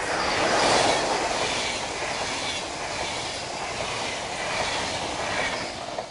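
SBB Re 460 electric locomotive and its double-deck passenger coaches passing close at speed: a loud rush of wheel and air noise, loudest about a second in as the locomotive goes by, then steady with a faint regular beat of the wheelsets. It falls off sharply near the end as the last coach passes.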